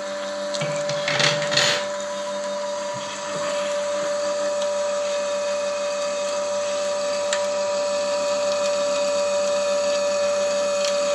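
Small electric screw oil press running with a steady motor whine as it presses almonds, oil dripping from the press head. A short rattle between one and two seconds in.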